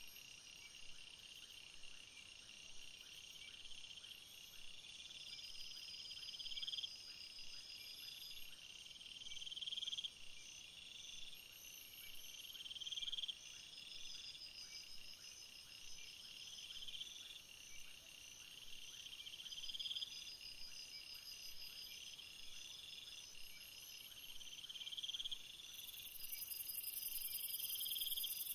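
Background chorus of insects chirping: trills that swell and recur about every two seconds, over faster, higher pulsed chirps, with a steady high hiss joining near the end.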